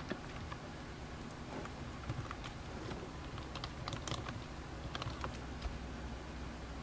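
Computer keyboard typing: faint, irregular keystrokes.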